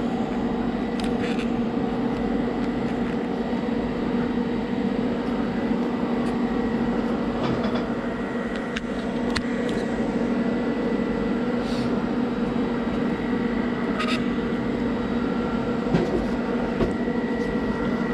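A steady machine hum, holding a low tone and one higher tone, with a few light clicks and knocks from the work being handled and set up.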